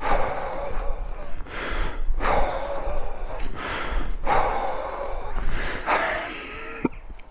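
A man breathing heavily while climbing a steep incline: long, gasping breaths roughly every two seconds.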